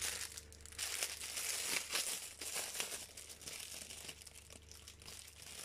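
Thin clear plastic wrapping and zip-lock bags crinkling as they are handled, busiest in the first few seconds and fainter near the end.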